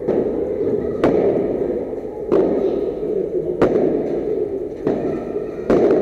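A padel rally: rackets striking the ball, with its bounces, as six or so sharp pops about a second apart, echoing in the enclosed court.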